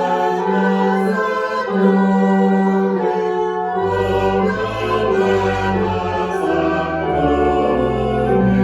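Choir singing a slow piece in long held chords. A low bass part comes in about four seconds in.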